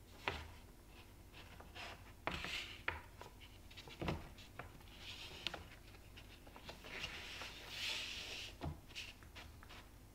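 Hands handling a wooden picture frame moulding: about six light wooden knocks, with soft rubbing and scraping of hands on the wood in between.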